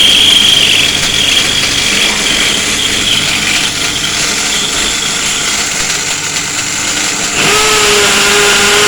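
Angle grinder running, its high whine fading after about three seconds. About seven and a half seconds in, a power drill starts up, adding a louder steady motor hum as it bores into the running grinder.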